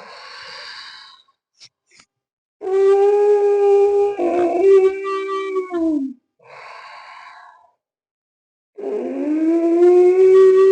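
Ujjayi pranayama breathing: a man drawing breath in through a deliberately tightened throat, voicing two long, steady, moaning tones of about three seconds each that drop in pitch as they end. Softer breathy rushes of air come between them.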